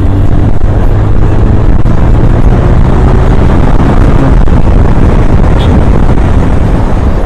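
Bajaj Pulsar 180's single-cylinder engine running steadily at road speed, with heavy wind rush on the helmet-mounted microphone.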